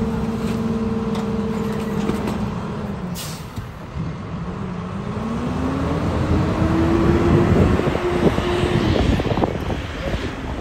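Rear-loader garbage truck: the diesel engine runs at steady raised revs, then drops about two seconds in. A short hiss of air brakes releasing comes a little after three seconds, and the engine then revs up with a rising pitch as the truck pulls away.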